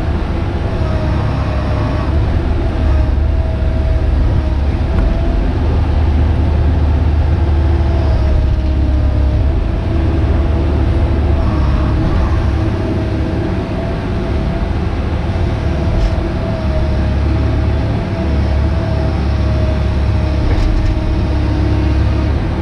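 Hitachi Zaxis 130 excavator's diesel engine and hydraulics running under load, heard from inside the cab, with a steady, slightly wavering tone above the deep engine sound.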